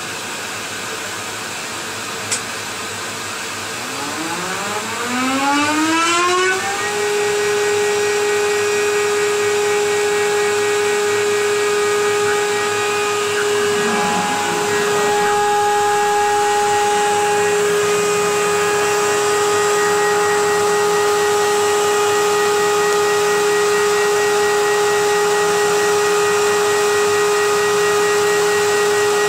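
A motor on a CNC milling machine with dust extraction spins up about four seconds in, its whine rising in pitch for a couple of seconds, then runs at a steady high pitch over a constant rush of air.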